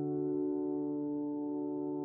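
Outro music: a soft sustained keyboard chord that slowly fades.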